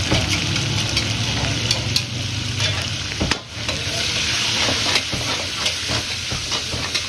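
Mutton pieces sizzling in hot oil in a steel karahi while a metal spatula stirs and turns them, with frequent clinks and scrapes of the spatula against the pan. The sizzle drops away briefly a little after halfway.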